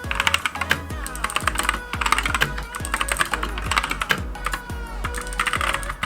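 Rapid typing on a Monstargear MK308 keyboard with Gateron optical switches: dense, fast key clicks throughout. Background electronic music with a steady bass line plays underneath.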